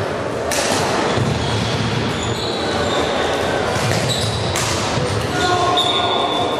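Floorball play on an indoor court: sharp clicks of sticks hitting the plastic ball, with short high squeaks of shoes on the sports floor, all echoing in a large hall. Two louder knocks stand out, about half a second in and again about four and a half seconds in.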